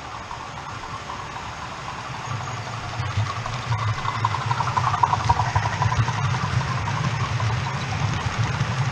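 OO gauge model class 50 diesel locomotive on a DCC layout, its engine sound running with a low buzz as it hauls its coaches past, growing louder as it approaches.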